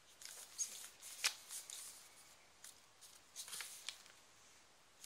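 Pages and card inserts of a thick handmade paper journal being handled and turned: short papery rustles and flicks, the sharpest a little over a second in and a cluster near the end.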